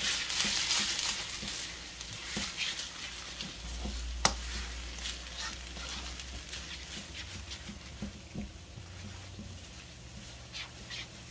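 Rice and freshly cracked eggs sizzling in a large wok as they are stirred and swirled to break up the yolks, with light clicks and scrapes of the utensil and one sharp knock about four seconds in. The sizzle gradually dies down.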